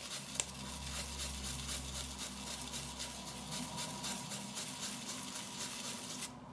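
Horsehair shaving brush swirled briskly in a tub of shaving soap, a rapid, steady wet scrubbing as the brush loads soap. One light click comes about half a second in, and the scrubbing stops abruptly near the end.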